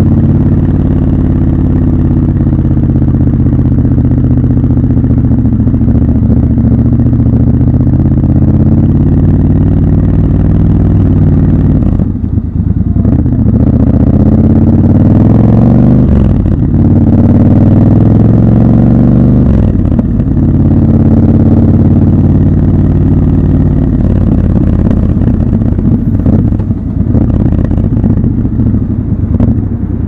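Triumph Scrambler 1200 XC's 1200 cc parallel-twin engine, raw exhaust and engine sound from the rider's seat, running at low speed. About halfway through it pulls harder: its pitch rises twice, with a short dip at the gear change in between, then it drops back to a steady low-speed note.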